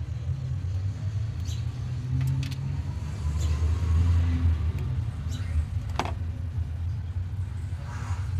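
A car engine running with a steady low rumble that swells a little midway, and one sharp click about six seconds in.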